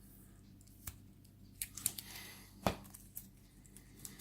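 Adhesive tape being peeled off a lock: a string of sharp crackles and clicks, the loudest about two-thirds of the way through, with a short stretch of tearing about two seconds in.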